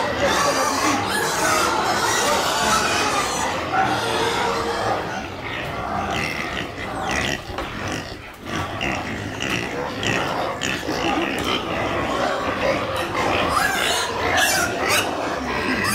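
Farm livestock calling and squealing continuously and noisily at feeding on fresh hydroponic barley fodder.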